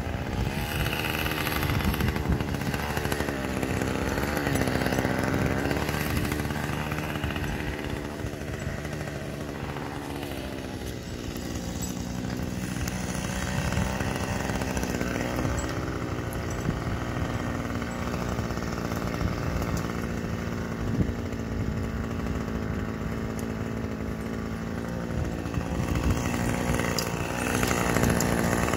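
Gas chainsaw running, its engine pitch wavering up and down as it is throttled.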